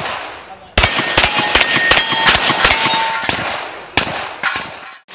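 Rapid handgun fire at steel popper targets: a fast string of shots, several a second, starting about a second in, with the steel ringing briefly after the hits. The string slows near the end.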